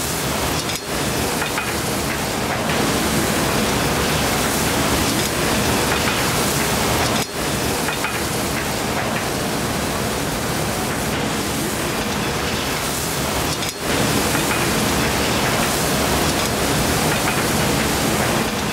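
Steady loud hiss like static, even across all pitches, broken by three short dips in level.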